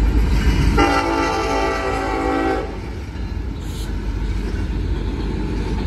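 Freight locomotive's air horn sounding one long blast, a steady multi-note chord starting about a second in and lasting nearly two seconds, over a steady low rumble.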